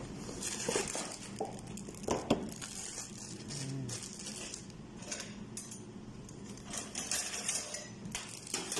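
Scattered light clicks and clinks of kitchen items being handled on a stainless-steel counter, along with handling of a plastic bag.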